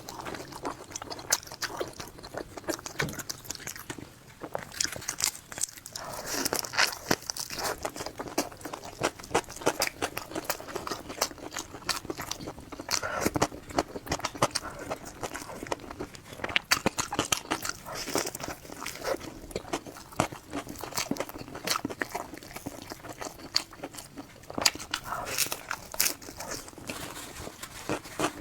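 A person biting into and chewing crunchy food close to the microphone, with a dense, irregular run of crisp crunches.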